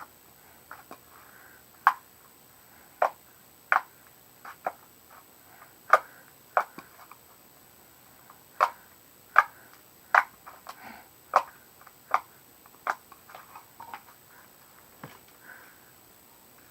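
Homemade slime being squeezed and stretched in the hands, giving irregular sharp pops and clicks, about one a second.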